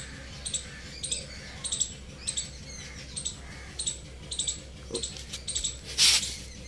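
Boxer puppy making a run of short, high-pitched squeaks, about two a second, with a short loud breathy burst about six seconds in.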